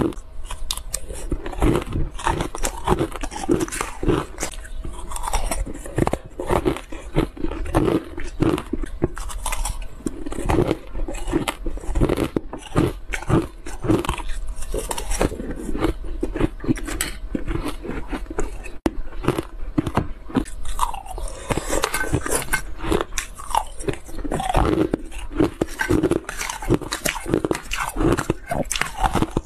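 Close-miked crunching of ice cubes and shaved ice being bitten and chewed, a continuous run of sharp, irregular crackles.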